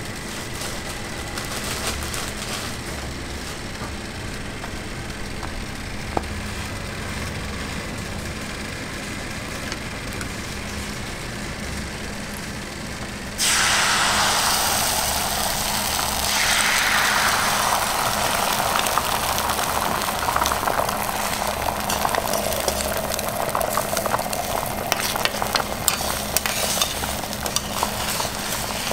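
Oil sizzling quietly on a hot flat-top griddle. About halfway through, beaten egg mixture is poured into a square metal egg mold on the griddle, and the sizzle jumps suddenly louder and stays loud as the egg fries.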